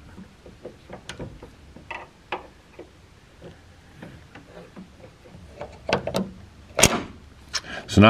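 A wrench turning a nut on the threaded steel rod of a barn door puller: scattered small metal clicks and scrapes, with a sharper click about seven seconds in.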